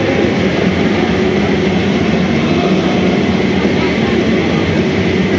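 Several rowing machines whirring steadily as athletes row hard, mixed with a din of voices from the crowd and judges.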